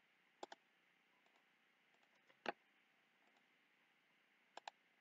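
Computer mouse button clicks against near silence: a quick double click about half a second in, a single louder click in the middle, and another quick double click near the end.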